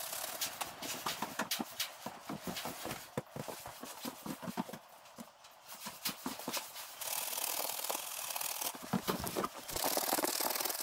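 Stencil dauber dabbed against a stencil on a wool bale in quick, irregular taps. After a short lull, an aerosol spray-paint can hisses steadily as paint is sprayed through a stencil onto the bale, the hiss broken briefly by a few more taps.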